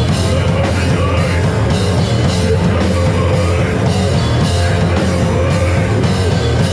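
Hardcore punk band playing live and loud: distorted electric guitar, bass and drums with cymbal hits about twice a second, and a vocalist shouting into a microphone.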